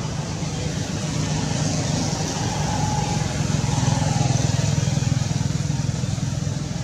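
A motor vehicle's engine running steadily, growing louder to a peak about four seconds in and then fading as it passes.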